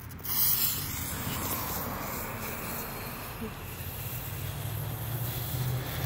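Robot Attack ground firework fountain spraying sparks with a steady hiss that sets in just after the start.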